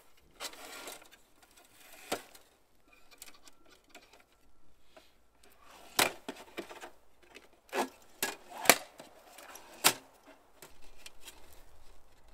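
Sheet-metal panels of a folding tent stove clicking and clanking as the stove is unfolded and set up, with a handful of sharp metallic clicks, the loudest in the second half, between quieter rustling handling.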